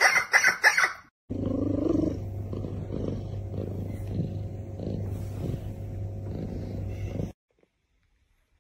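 A quick run of five or six sharp, loud animal calls in the first second, then a cat purring loudly and steadily, close up, for about six seconds before it stops abruptly.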